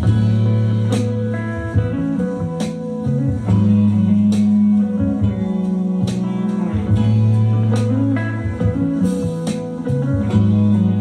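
Instrumental blues-style guitar music with a strong bass line, played through an Xdobo Sinoband Challenger 2020 portable Bluetooth speaker.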